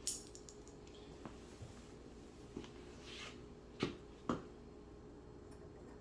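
Light handling noises from plastic door-trim clips: a sharp click at the start, a soft brushing sound around the middle, and two sharp clicks about half a second apart a little after that.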